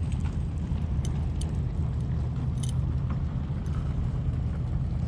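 Steady low outdoor background rumble, like distant traffic or engine noise, with a few faint clicks.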